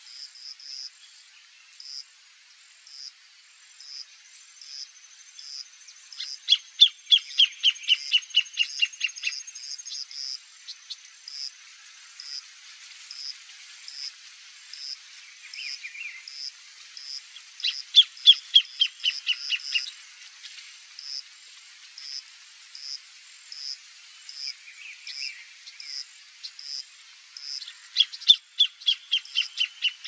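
Greater thornbird singing: three loud bouts, each a run of a dozen or so rapid notes falling in pitch over two to three seconds. A high chirp from another creature repeats steadily in the background, a little more often than once a second.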